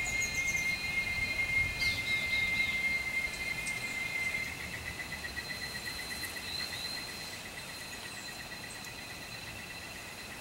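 Insects droning in a steady high-pitched chorus of several tones, one of which turns into a fast pulsing about halfway through while the whole sound slowly fades. A few short high bird chirps come in the first two seconds.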